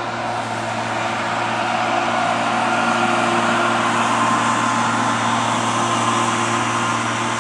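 Self-propelled crop sprayer's engine running steadily with a broad hiss as it drives past spraying herbicide, growing louder over the first few seconds as it draws near.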